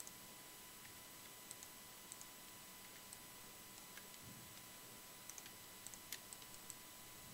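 Near silence, broken by a dozen or so faint, irregular clicks of a computer mouse and keyboard as the software is worked.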